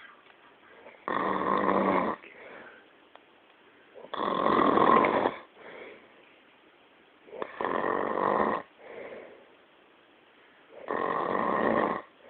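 Loud snoring: four long snores, each about a second long and coming roughly every three and a half seconds, each followed by a softer breath.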